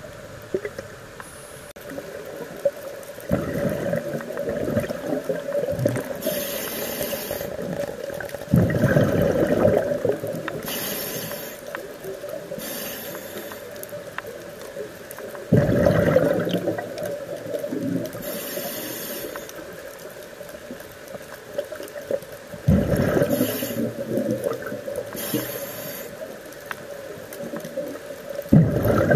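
Scuba diver breathing through a regulator underwater: a short hiss on each inhale and a loud gurgling rush of exhaled bubbles, repeating about every six to seven seconds.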